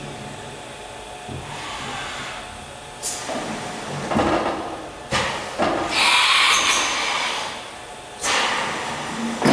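STYLE BT-2000 CNC machining centre running: a series of sudden bursts of hissing, mechanical noise. Several short ones come first, then longer ones about six and eight seconds in.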